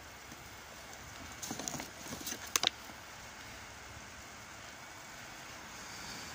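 Brief close-up crunching and crackling, about a second long, ending in two sharp clicks, over a low steady background hiss.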